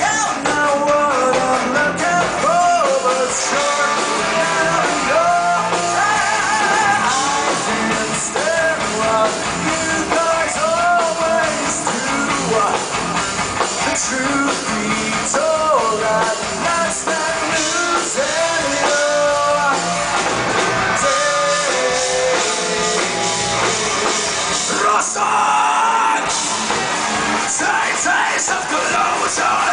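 Metal band playing live: electric guitars, bass and drums with a sung lead vocal, loud and continuous.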